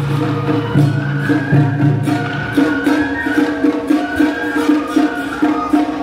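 Traditional Japanese procession music: a high wavering melody over a regular pulsing beat, with a held low tone that stops about two and a half seconds in.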